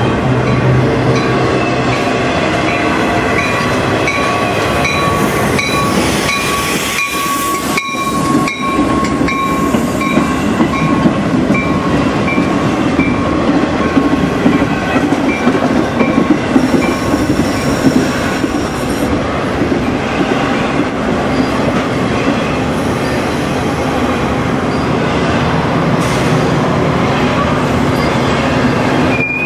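Two trains passing at once on adjacent tracks: a double-stack container freight and a Metra bilevel commuter train, a steady loud rumble of steel wheels on rail with clickety-clack over the joints. A thin high squeal sounds through the first third, and the commuter train's diesel locomotive comes past at the rear near the end.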